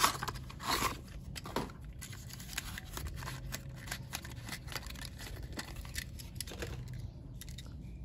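Hands tearing and opening the packaging of a 1:64 diecast toy car: a steady run of small crackles, crinkles and rustles of box and wrapping.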